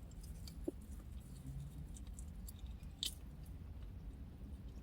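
Quiet chewing of food, with two faint clicks, a small one under a second in and a sharper one about three seconds in, over a low steady hum.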